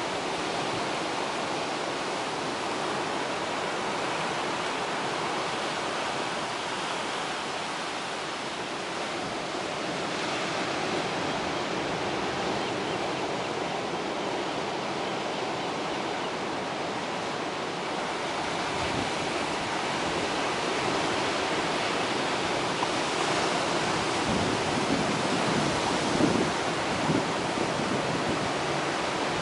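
Ocean surf breaking and washing over a rocky shoreline: a steady rushing that swells slightly louder in the last third. A few short low bumps come near the end.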